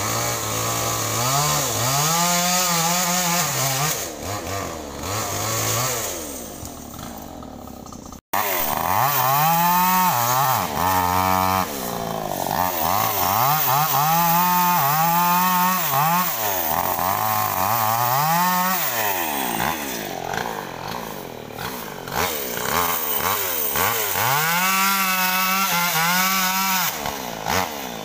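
Two-stroke chainsaw cutting through the limbs of a felled tree, its engine revving up under the throttle and dropping back again and again. The sound cuts out for an instant about eight seconds in.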